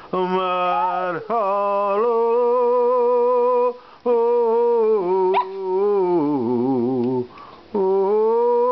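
Maltese terrier howling along to a song in long, held, wavering notes, about five drawn-out phrases with short breaks between them. A lower singing voice runs beneath the howls at times.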